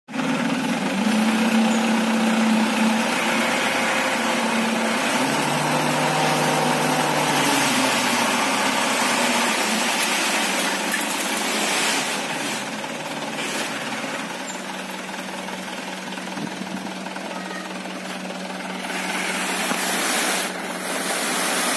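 Diesel engine of a loaded dump truck running while the hydraulic hoist tips the bed, with the rushing hiss of sand sliding and pouring off the raised bed.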